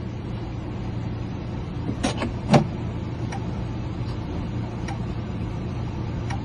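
A 1986 Ford F-150's door and lock being worked with a newly cut key: a few light clicks, with a heavier knock about two and a half seconds in, over a steady low engine hum.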